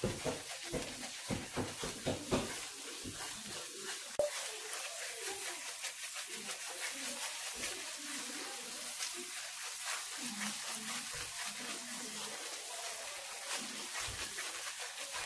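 Mysore pak batter of gram flour and sugar syrup sizzling and crackling in hot ghee in a kadai as it is stirred with a wooden spatula, with quick scraping strokes in the first two seconds and bubbling through the rest.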